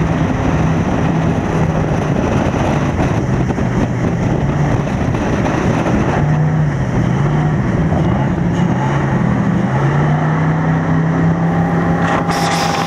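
Motorboat engine running hard at speed, its pitch dipping and climbing again partway through as the throttle changes, over a steady rush of wind and water. A brief hiss near the end.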